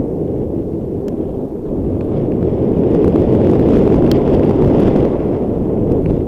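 Wind buffeting the microphone of a camera on a mountain bike riding fast down a dirt trail, mixed with the rumble and light rattle of the bike over the rough ground. It grows louder toward the middle as speed builds.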